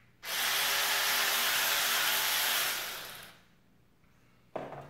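XINGDI cordless 3/8-inch electric ratchet running free, a steady motor whir, here powered by the 12 V battery fitted in the 18 V model. It starts a moment in, runs for about three seconds and fades out. A knock follows near the end.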